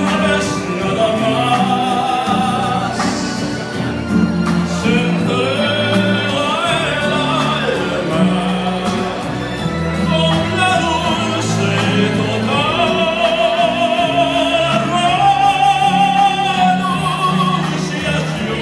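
Male tenor singing a bolero in an operatic style over instrumental accompaniment, with a wide vibrato and long held notes, the longest in the second half.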